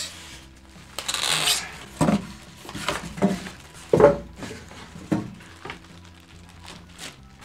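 Unboxing handling noise: cardboard and plastic wrapping rustling as an inverter MIG welder is lifted out of its box, followed by several knocks and thuds, the loudest about four seconds in, as the wrapped welder and box are set on the table.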